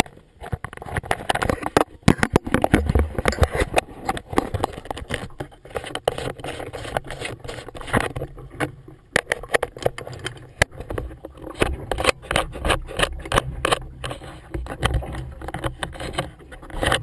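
Handling noise on a GoPro action camera: irregular knocks, taps and rubbing as it is moved about against clothing and held up close to a face, over a low rumble.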